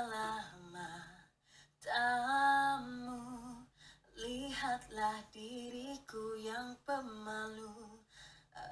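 A teenage boy singing slow phrases in a high, woman-like voice, imitating a female Malay singer. The phrases have held notes and short pauses between them.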